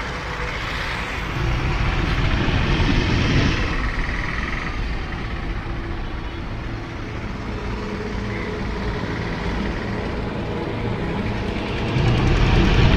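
Steady low rumbling noise that swells about two seconds in and again near the end.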